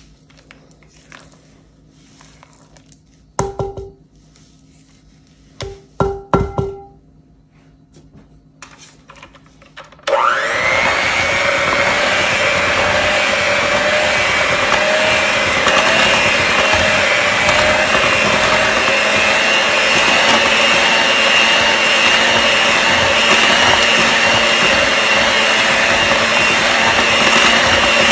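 A few short ringing clinks, then about ten seconds in an electric mixer switches on and runs steadily with a constant whine, beating cream cheese and sugar.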